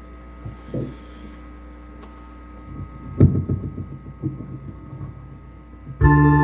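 Steady electrical mains hum from an amplified setup, with a small knock and then a louder thump that rings briefly. Near the end an electronic organ or keyboard suddenly starts playing chords.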